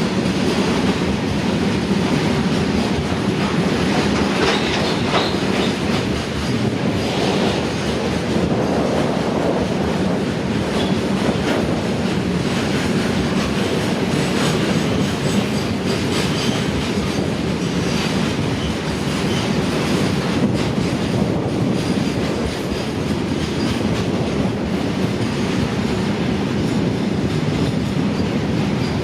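Fully loaded freight train rolling past steadily: wagon wheels clicking over rail joints over a continuous rumble.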